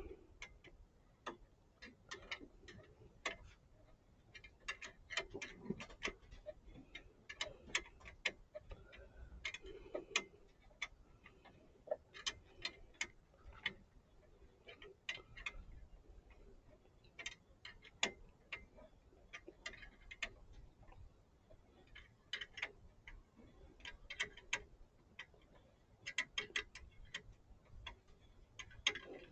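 Faint, irregular light clicks and clinks, some single and some in quick clusters, from hand tools and metal fittings being worked on an A/C refrigerant line under the car.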